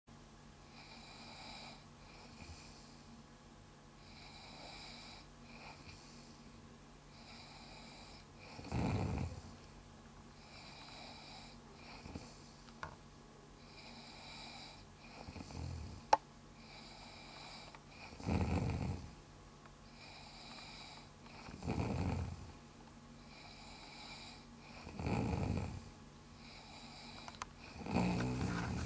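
A sleeping person snoring. Quiet breathing for the first few seconds, then loud, low snores from about eight seconds in, coming roughly every three seconds.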